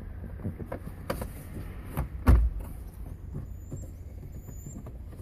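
A few sharp knocks and clunks in a car, the loudest a little over two seconds in, over a steady low rumble.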